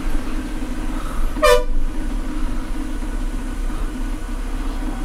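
Bus engine running steadily, with one short vehicle-horn toot about a second and a half in.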